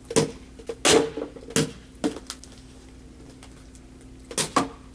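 Sharp clinks and clatters of small hard objects being handled: four about two-thirds of a second apart in the first half, then two more close together near the end.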